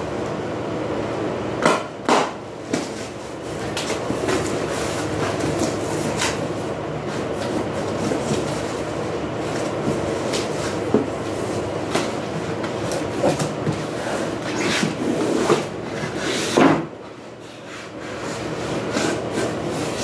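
Cardboard shipping box being opened and unpacked by hand: flaps and packing rustling and scraping, with scattered sharp knocks and taps, the loudest about two seconds in and again near the end. A steady mechanical hum runs underneath, dropping away for about a second near the end.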